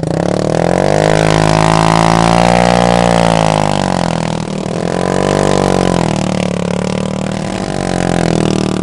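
Romet 777 scooter engine running with no exhaust fitted, loud, revved up and down about three times, the pitch climbing and falling with each rev.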